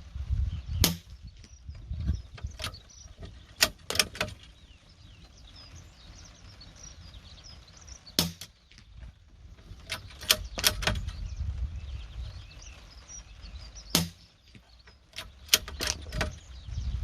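Sharp metallic clicks and knocks, some in quick pairs and triplets, from a takedown .22 bolt-action rifle being handled, over a low rumble of wind on the microphone.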